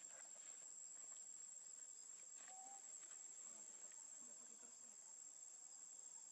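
Faint, steady high-pitched drone of insects, with a few soft ticks and one short, even-pitched call about two and a half seconds in.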